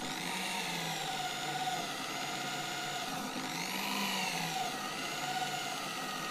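Angle grinder clamped to a bench, running with a wire wheel brush while a steel lathe chuck jaw is pressed against it to scrub off old grime. Its steady whine sags in pitch and recovers a few times as the jaw loads the wheel.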